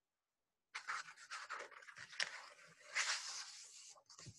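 Paper page of a picture book being turned, rustling and sliding, starting about a second in, with a few sharp crackles.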